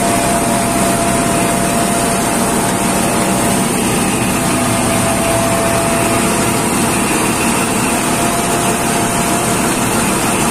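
Maruti Agro Jumbo Tokri MA 7 combine thresher running steadily while threshing mustard: a loud, even mechanical din with a faint steady whine.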